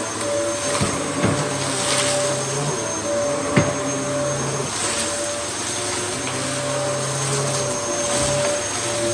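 Dyson DC07 Origin upright vacuum cleaner running steadily, with a constant motor whine and a few short clicks; the sharpest click comes about three and a half seconds in.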